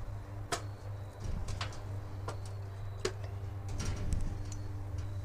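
Scattered sharp clicks and knocks, roughly one a second, over a steady low hum.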